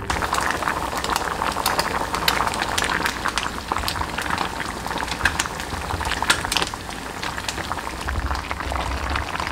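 Thick, spicy potato stew bubbling at a boil in a pot, a steady dense crackle of small bubbles popping.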